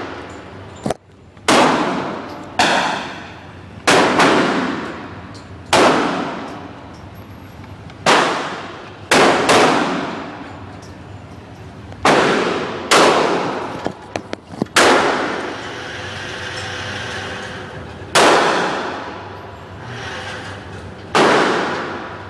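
Pistol shots at an indoor shooting range: about a dozen sharp reports at irregular intervals, each followed by a long echoing ring.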